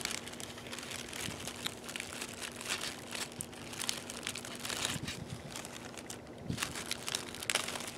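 Crinkling and rustling of a fire-kit pouch and its contents being handled and opened, with scattered small clicks and taps.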